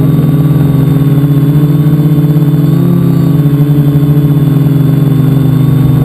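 Multicopter's electric motors and propellers buzzing in a steady, loud drone, heard from a camera mounted on the craft itself; the pitch wavers slightly about halfway through.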